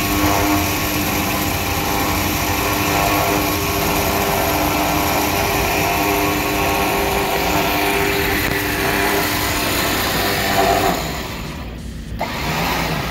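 Electric vehicle winch motor running under load with a steady whine, dropping away about eleven seconds in.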